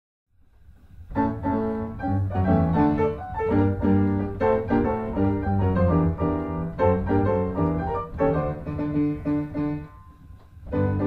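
Piano music played as background, fading in about a second in, with changing chords over a low bass line and a brief lull near the end before it picks up again.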